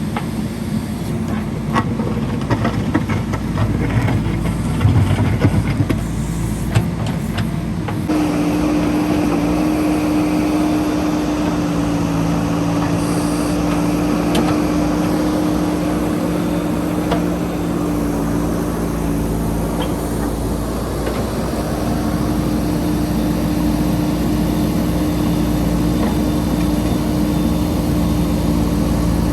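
JCB 3DX backhoe loader's diesel engine running, with rattling and knocking over it for the first several seconds. About eight seconds in the sound changes abruptly to a steady, even engine note.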